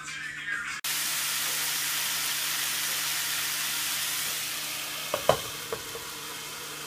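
Steak and chopped onion sizzling in a hot nonstick frying pan: a steady hiss that starts suddenly about a second in. Around five seconds in, two or three sharp clinks as a glass lid goes onto the pan, and the sizzle goes on more softly under it.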